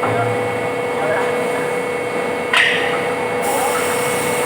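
Plastic injection moulding machines running: a steady mechanical drone with a constant hum. About halfway through there is a short sharp hiss, and a high hiss follows about a second later.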